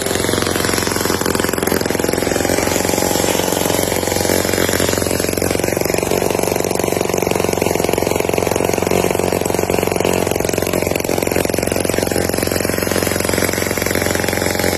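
Small diesel tractor engine running steadily.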